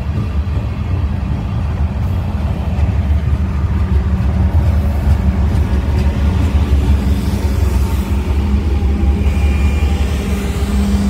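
Loaded covered hopper cars rolling past, then BNSF diesel-electric locomotives passing close, their engines running with a deep, steady rumble over wheel and rail noise. The engine tones grow stronger near the end as the locomotives go by.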